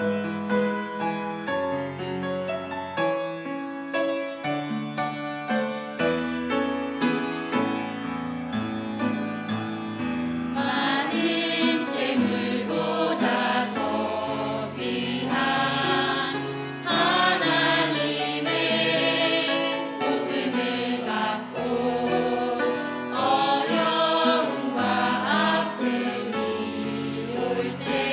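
Christian song performed live: about ten seconds of piano accompaniment alone, then singing voices with vibrato come in over the piano and carry the melody.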